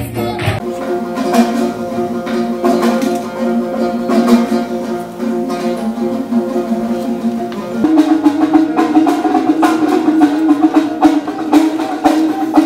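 Solo dombra, the Kazakh two-stringed long-necked lute, played with a quick rhythmic strum. About eight seconds in, it gives way to a louder solo komuz, the Kyrgyz three-stringed fretless lute, also strummed in a rapid rhythm.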